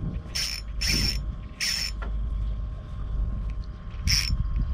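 Spinning reel's drag buzzing in four short bursts as a hooked fish pulls line off against it, over a steady low rumble.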